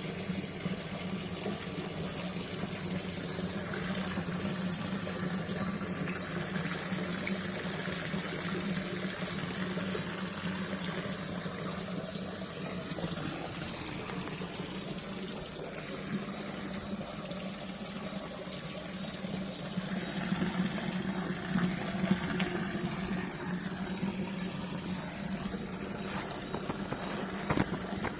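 Water from a small garden pond waterfall splashing and trickling steadily into the pond, with a steady low hum underneath.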